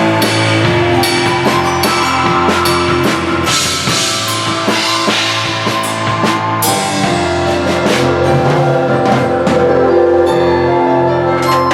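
Piano chords with a large drum kit and cymbals playing along in a jam. The piano's held chords carry the sound, and the drums and cymbals sit back in the mix.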